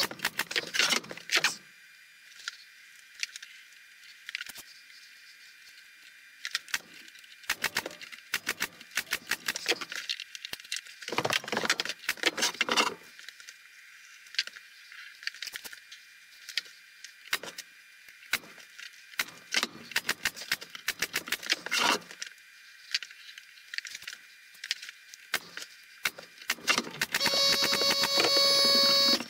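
A corded handheld power tool's motor runs with a steady whine at the very start, stops, and runs again for about two seconds near the end. In between come scattered clicks, taps and knocks as the wooden frame is handled and turned on the bench.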